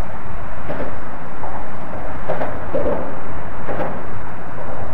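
Wind buffeting the camcorder microphone: a loud, steady rumble.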